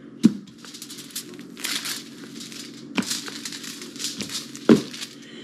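A metal spray can rolled over pizza dough on aluminium foil as a makeshift rolling pin, with rustling and crinkling of the foil. Three dull knocks stand out: one just after the start, one about three seconds in and the loudest near the end.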